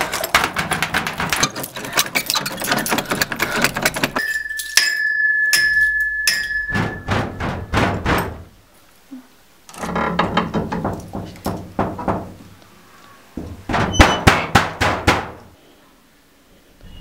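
Bursts of rapid clattering knocks, several a second, separated by short pauses. A steady high tone holds for about three seconds in the first half. The loudest burst of knocks comes near the end.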